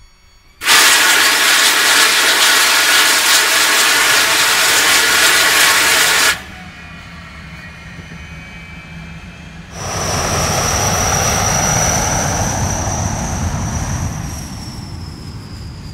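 Aircraft engine recordings cut together. A loud, harsh engine run starts about half a second in and cuts off abruptly near six seconds, followed by a quieter stretch. From about ten seconds a loud engine with a high, steady whine returns, and the whine drops slightly in pitch near the end.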